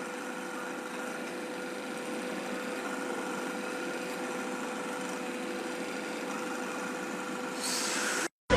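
A small motor running steadily with a constant whine, like a power tool. Near the end a brief hiss rises before the sound cuts off.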